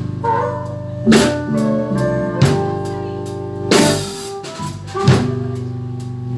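A blues band playing live, with no singing. A drum kit lands a strong hit about every second and a quarter, under held guitar and bass notes.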